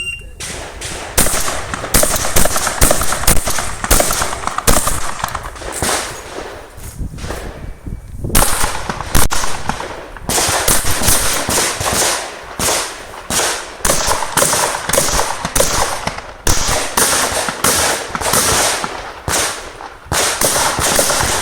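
Pump-action shotgun shot in quick succession through a practical shooting stage, the loud reports coming a fraction of a second to a second apart. There is a short lull about seven seconds in before the firing resumes.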